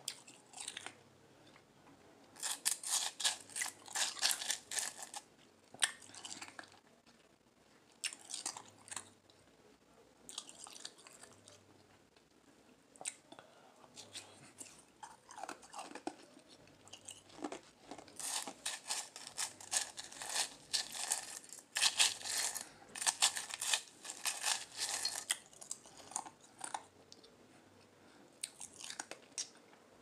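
Crushed ice being crunched and chewed close to the microphone, in spells of rapid crackling crunches with quieter pauses between. The longest, loudest spells come a few seconds in and again from just past halfway.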